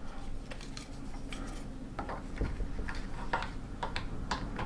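Scattered light plastic clicks and ticks, about a dozen at an irregular pace, as plastic wrenches grip and tighten the screw nut of a solar-panel cable connector.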